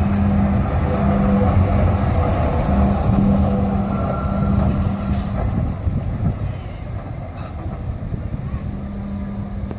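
A De Lijn coast tram, a BN articulated tram, passes close by on street track, its wheels rumbling on the rails under a steady low hum. The sound fades from about six seconds in as the tram moves away.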